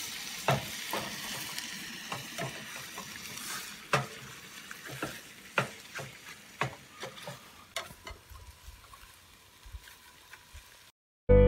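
Bacon sizzling in a pan on a camp stove, a steady hiss that slowly fades, with footsteps on dry ground about twice a second.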